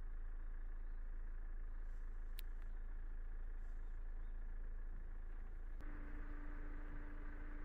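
A car driving, with a steady low engine and road rumble. There is a sharp click about two and a half seconds in, and a steady hum joins the rumble about six seconds in.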